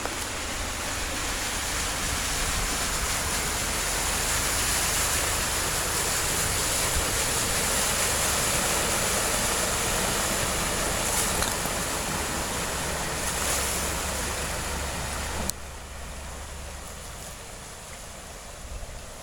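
A truck fording deep flood water: a rushing wash of water with a low engine rumble underneath. It swells to a peak about eight seconds in, eases off, then drops suddenly to a quieter hiss about fifteen seconds in.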